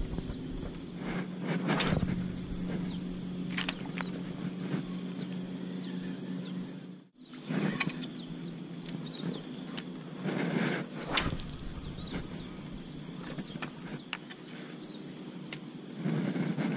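Outdoor ambience by a pond. A steady low hum runs through the first half, with scattered faint clicks and a few short rushes of noise. The sound drops out briefly about seven seconds in.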